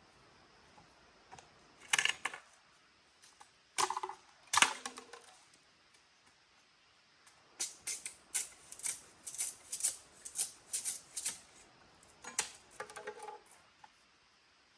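A series of sharp taps and knocks: a few separate knocks, some with a short ring, then a quick run of about a dozen taps a little past the middle, and a short cluster near the end.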